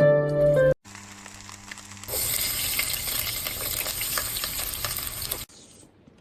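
Food frying in a pan: a crackling sizzle with many small spits that starts about two seconds in and cuts off suddenly a few seconds later.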